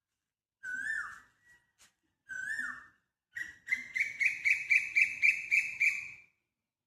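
A bird singing: two short whistled notes that slide downward, then a faster, louder run of repeated whistled notes, about four a second, that stops about six seconds in.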